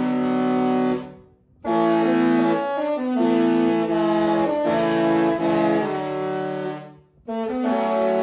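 Disney Destiny cruise ship's musical horn playing a tune, several notes at once in held, brassy phrases. It breaks off briefly about a second in and again near the end before starting the next phrase.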